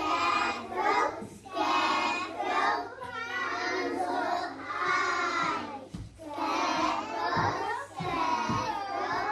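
Young children's voices singing together in short phrases, with brief pauses between them.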